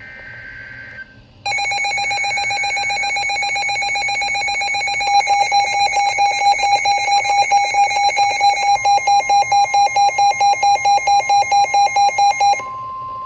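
Midland NOAA weather radios sounding their warning alert for a flash flood warning. A short run of two-pitch data tones is followed, about a second and a half in, by a loud electronic alarm: a steady tone overlaid with a fast pulsing beep. Near the end the radios' alarm cuts off, leaving the broadcast's steady single-pitch warning alarm tone.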